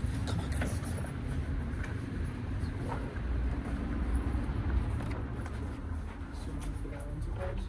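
Steady low rumble of a running vehicle, with a few faint light clicks.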